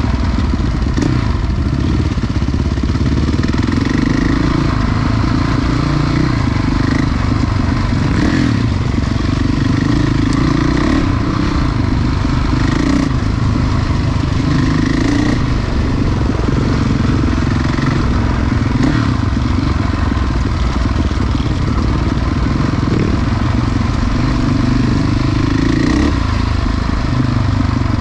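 Enduro motorcycle engine running, its revs rising and falling unevenly, with occasional knocks and rattles.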